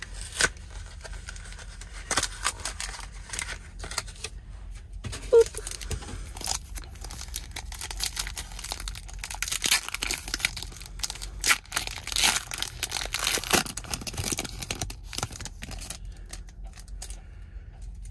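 The foil wrapper of a Disney Lorcana trading-card booster pack being torn open and crinkled by hand, a run of crackling tears and crinkles that is busiest from about nine to fourteen seconds in.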